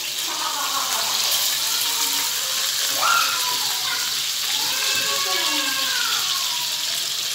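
Whole seasoned snapper sizzling as they shallow-fry in hot oil in a nonstick frying pan: a steady, even hiss.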